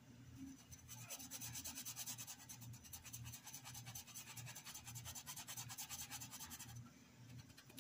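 A Pituá paintbrush scrubbing fabric paint into a cotton dish towel in quick, short back-and-forth strokes, several a second. It is faint and scratchy, and stops about seven seconds in.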